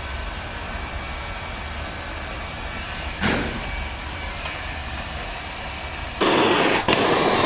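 Handheld electric heat gun running steadily, its fan blowing with a low hum and a faint whine, as vinyl wrap is heated on a van panel. A brief louder rush comes about three seconds in, and about six seconds in a much louder rushing noise starts and holds, with one short dip.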